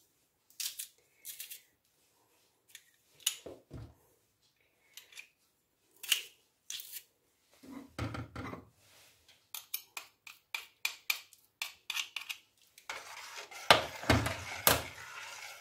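Metal garlic press crushing garlic cloves: scattered short metallic clicks and knocks as its handles are worked, with a quick run of clicks about ten seconds in. Near the end comes a couple of seconds of louder scraping with sharp knocks.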